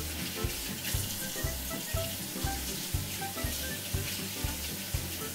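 Kitchen tap running steadily into the sink as hands are washed after handling raw chicken, over background music with a steady beat of about two thumps a second.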